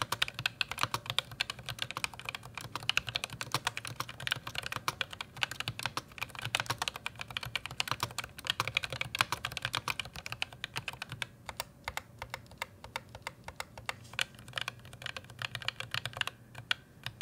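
Fast typing on a ROG Claymore II keyboard with ROG RX Red linear optical switches: a dense, uneven run of keystroke clacks with no switch click, broken by a few short pauses in the second half.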